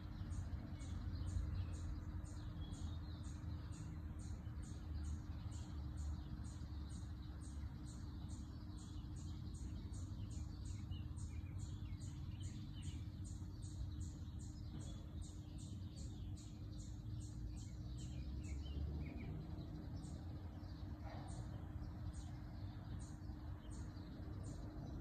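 Room background noise with a low rumble and a steady hum, and faint short high chirps repeating about twice a second that thin out near the end.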